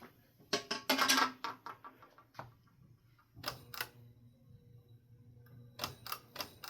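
Clicks and knocks of hard objects being handled, in three short clusters, over a faint steady low hum.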